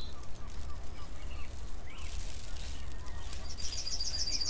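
Birdsong ambience: several birds chirping, with a fast high trill near the end, over a steady low rumble.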